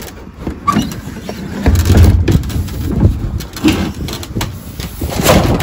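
Thule Force rooftop cargo box being unlocked with its key and its plastic lid lifted open: a run of irregular clicks, knocks and rattles, with a low rumble about two seconds in and a louder knock about five seconds in.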